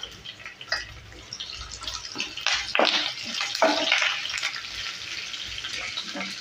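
Sliced onions, green chillies and fresh curry leaves sizzling in hot oil in a nonstick frying pan. A spatula scrapes and stirs through them in several strokes, and the sizzle grows louder from about two seconds in.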